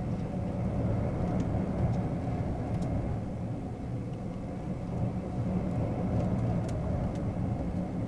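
Steady low rumble of a force 12 storm heard from inside a cruise ship's cabin: the gale against the ship and the hull working in heavy seas, with a few faint ticks.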